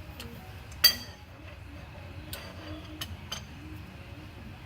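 A sharp metallic clink that rings briefly, about a second in, then a few lighter clicks: a breaker bar and socket knocking on the steel of a rear axle bracket bolt as it is worked loose.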